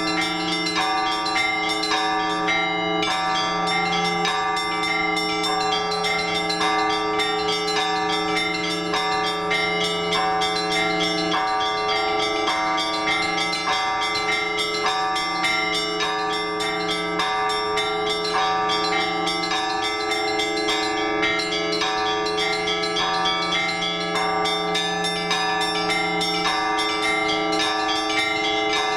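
Several Orthodox church bells rung together in a continuous peal: quick, repeated strokes on the small bells over the slower, regularly re-struck tones of the larger bells.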